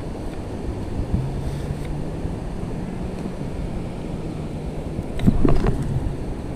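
Long-handled beach sand scoop digging and lifting wet sand, against steady wind noise and surf with a faint low hum. About five seconds in comes a short, louder scrape and rattle as the loaded scoop is raised and shaken.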